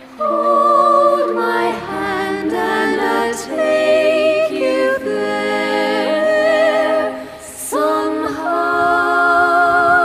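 A song on the soundtrack: a sung voice holding long notes with vibrato, with little or no instrumental accompaniment.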